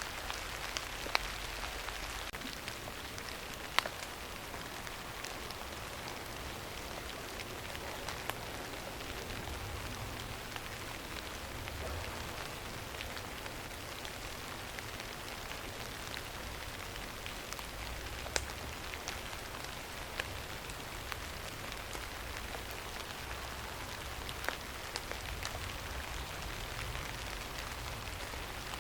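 Steady rain falling on a surface, an even hiss with a low rumble beneath it and occasional sharp, louder drop ticks scattered through it.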